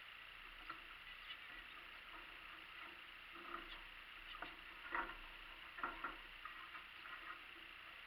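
Canaries and zebra finches in a garden aviary, with a water bath set in: faint, scattered short chirps and splashes, the loudest about five and six seconds in.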